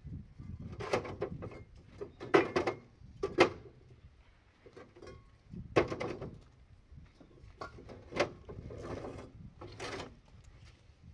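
A series of irregular knocks and clatters, roughly one every second or two, with quieter handling noise between them.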